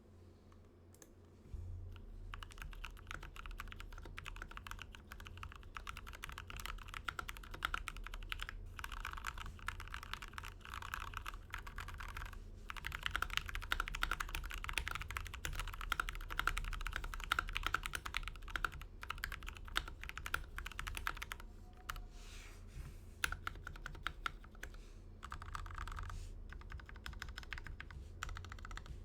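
Continuous fast typing on a 60% mechanical keyboard with lubed Gateron Milky Yellow linear switches in an acrylic case with an aluminium plate and PBT keycaps, a dense run of key clacks with a few brief pauses. The typing starts about a second and a half in.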